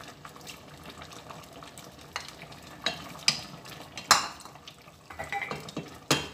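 Wooden spoon scraping and knocking against a bowl and a stainless steel pot as squid pieces are tipped into the sauce and stirred: quiet at first, then a string of sharp knocks, the loudest a little after four seconds in.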